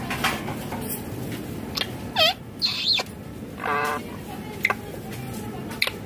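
Caged parakeets calling: several short harsh calls and squawks, the loudest about two seconds in, then a few sharp chirps near the end.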